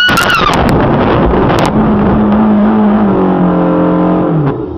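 Car crash on a snowy road: a scream fades as sharp impact knocks hit in the first second and again about a second and a half in, over heavy rumbling as the car slides off the road into snow. A steady drone holds over the last few seconds and drops away near the end.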